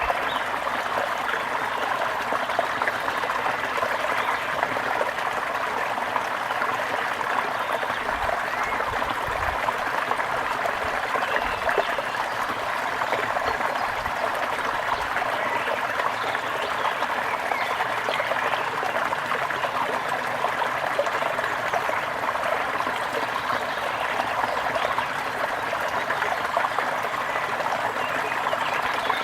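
Waterfall: a steady, even rush of falling, splashing water.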